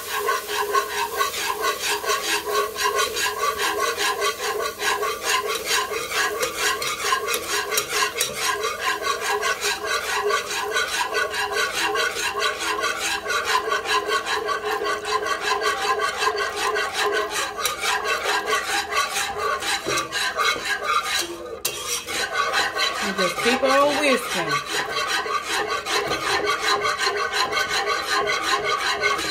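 Wire whisk beating milk and cream into a butter-and-flour roux in a pot: a fast, steady scraping and rattling of the wires against the pot, pausing briefly about three-quarters of the way through.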